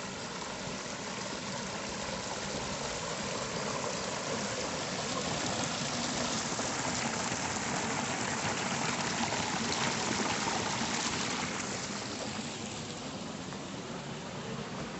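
Shallow stream running over rocks and splashing down a small cascade: a steady rush of water that grows louder through the middle and eases off near the end.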